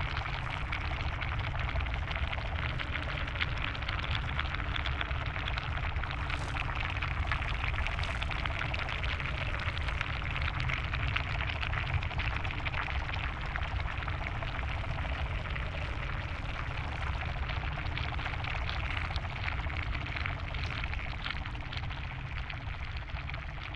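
Steady ambient sound-design bed: a dense fizzing, crackling, water-like noise over a low rumble, with no tune or beat.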